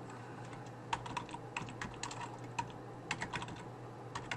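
Computer keyboard typing: irregular, fairly quiet keystrokes that begin about a second in, over a faint steady low hum.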